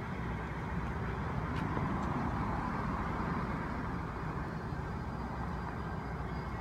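Road traffic noise: a car going past, swelling about halfway through and then fading.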